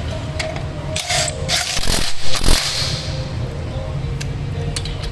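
Makita DTW700 18V cordless impact wrench running briefly on a car wheel's lug nut, from about a second in to nearly three seconds, with metallic scraping and clinking from the nut and socket.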